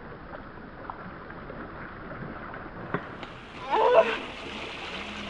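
Steady rush of moving river water, with a brief click about three seconds in, then a short, loud, excited human shout about four seconds in as a king salmon is scooped thrashing into a landing net.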